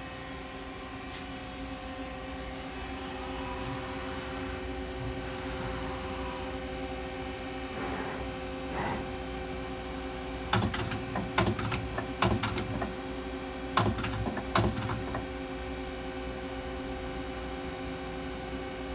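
1995 Mazak Quick Turn 10 CNC lathe running with a steady hum of several tones. About halfway through, the hum is broken by two spells of sharp clattering, each a second or two long.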